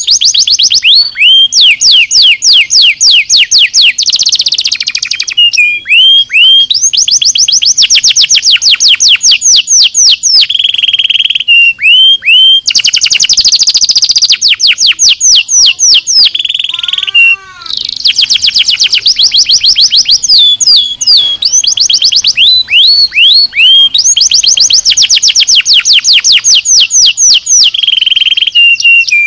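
Domestic canary singing a long, loud song of rapid trills: fast repeated down-sweeping notes that switch to a new trill every second or two, with a short run of lower falling notes about two-thirds of the way through.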